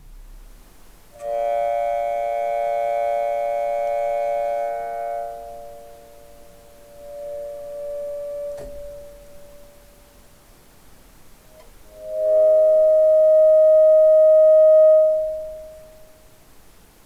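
An EBow sustaining notes on the strings of a homemade metal harp, giving long, even, organ-like tones rich in overtones. One tone sounds for about four seconds and fades out. A second, louder tone swells in about twelve seconds in, holds for a few seconds and dies away near the end. The heavy strings are slow to be set ringing by the EBow.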